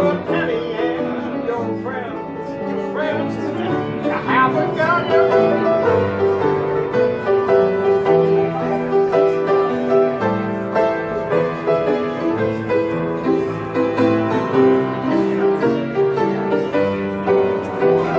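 Piano played live, a lively tune with an even, steady beat.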